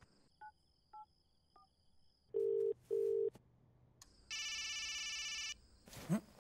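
Mobile phone ringing with an incoming call: three faint short beeps, then a double ring of two short low tones, then a buzzy electronic ring lasting about a second.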